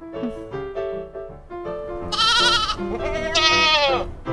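Gentle lullaby-style music of single held notes, with two sheep bleats over it about two and three and a half seconds in, each a wavering "baa", the second dropping in pitch at its end.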